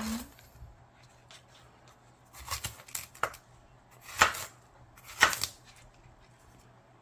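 Crisp, ripe apple watermelon flesh crunching: a series of short crunches, the two loudest about four and five seconds in.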